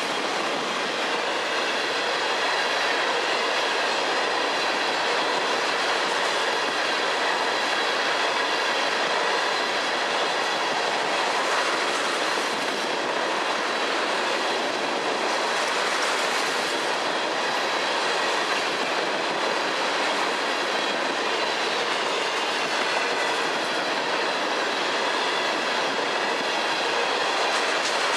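Freight train cars, boxcars and then tank cars, rolling steadily past on steel wheels and rails, with a faint steady high ring over the wheel noise.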